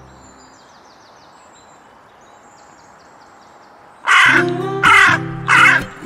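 Hooded crow cawing three times in quick succession, loud, starting about four seconds in, over background music.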